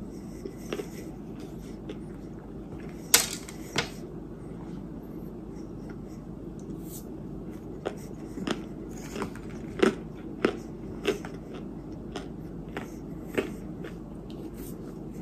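Soft, scattered clicks and small crunches from a spoon scooping powdered edible white clay ('white dirt') and from chewing, over a steady low hum. Two sharper clicks come a few seconds in, and a run of softer ones about every half second in the second half.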